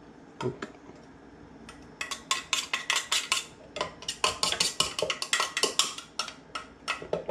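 A metal spoon scraping and clinking against a blender's blade assembly and a glass bowl as chimichurri sauce is cleared off the blade. After two isolated clicks, a rapid run of clinks and scrapes starts about two seconds in, several a second.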